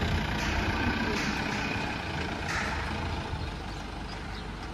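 Mahindra Bolero pickup's diesel engine running as the truck pulls away, with a brief hiss about two and a half seconds in.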